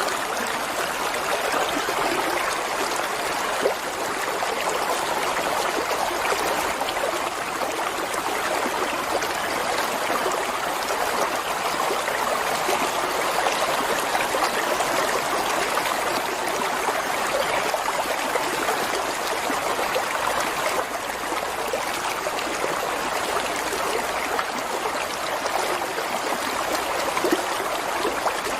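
Water flowing and trickling in a steady, even rush, like a small stream or brook running over stones.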